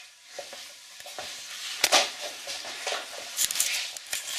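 Rope being pulled and slid into place, a rustling hiss broken by several quick, sharp swishes, the strongest a little before two seconds in and a cluster near the end.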